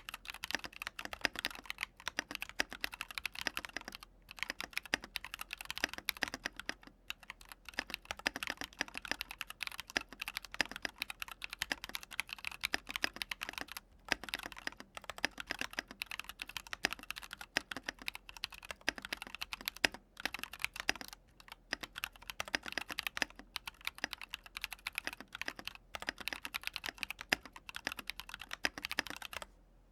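Continuous typing on a mechanical keyboard with linear switches: a fast, dense patter of key presses and bottom-outs with a few brief pauses. It stops just before the end.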